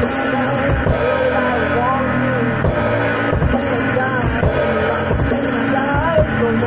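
Rock music from one player working guitar and drum kit at once, one hand striking the snare and toms while the other frets the guitar, with a singing voice over it.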